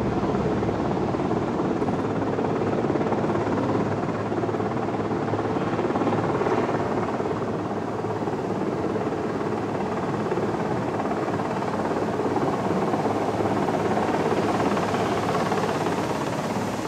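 Marine One, a Sikorsky VH-3D Sea King helicopter, running steadily on its approach as it descends to land. Its turbines and rotor make a continuous noise, and the hiss grows in the last few seconds as it comes in low.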